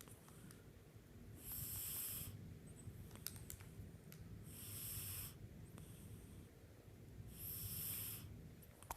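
A tabby cat snoring in its sleep: three breathy snoring breaths, each nearly a second long, about three seconds apart.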